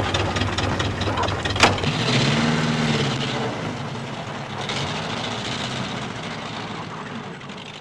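Jeep engine running as the vehicle drives off through snow. The engine note rises and falls about two seconds in, then fades away, with a sharp knock shortly before.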